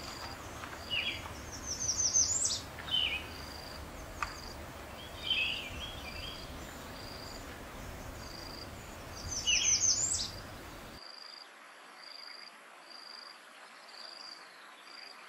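Bee-eater calling: scattered short chirps, with two louder bursts of quick descending notes about two seconds in and again near ten seconds. An insect chirps in an even pulse, a little more than once a second, the whole time. The low background noise drops away abruptly about eleven seconds in.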